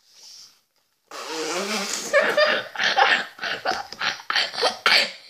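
A brief spray-bottle hiss, then boys laughing hard in quick repeated bursts.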